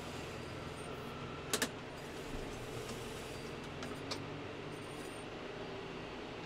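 Tractor engine running steadily as its front loader shifts muck, with two sharp knocks close together about one and a half seconds in.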